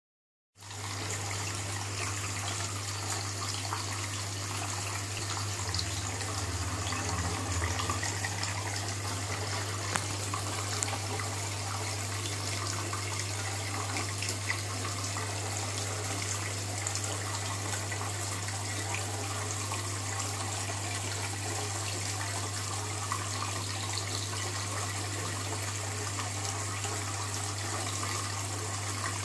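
Aquarium water running and trickling steadily, with a constant low hum under it, the sound of the tank's filtration or aeration.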